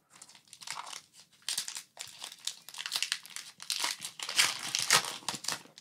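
Foil wrapper of a Pokémon booster pack crinkling and tearing as it is pulled open by hand, in uneven bursts of crackle.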